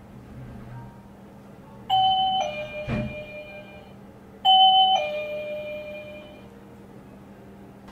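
A two-note ding-dong chime, a high tone then a lower one, sounding twice about two and a half seconds apart, each ringing out slowly. A dull thump falls between the two chimes.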